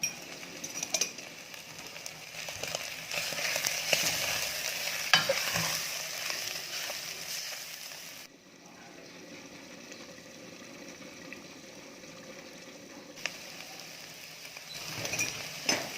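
Seasoned paste of kroeung, fermented fish paste, pork and fish sizzling in hot oil as it is stirred, with a few sharp clinks of the spatula against the pan. The sizzle is strongest in the first half and eases about eight seconds in.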